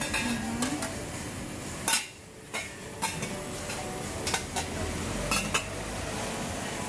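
Metal clanks and clinks of a long steel dondurma paddle working stiff Turkish ice cream in stainless-steel wells, and of the wells' metal lids being handled. There are several sharp knocks, the loudest about two seconds in.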